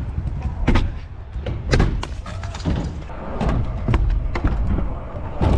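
Pro scooter wheels rolling over concrete ramps with a steady low rumble, broken by several sharp thuds and clacks of the deck and wheels hitting ramp edges and landing; the loudest come about a second in, just before two seconds, and at the very end.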